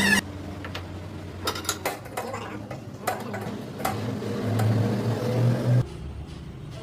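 Metal clinking and knocking, as of tools and steel parts handled on a workbench. A low machine hum swells about four seconds in and cuts off abruptly near the end.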